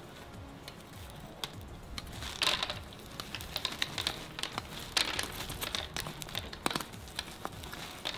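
Molten lava crackling and popping as it cools on a bowl of dry ice pellets: irregular sharp crackles, coming in a few denser bursts.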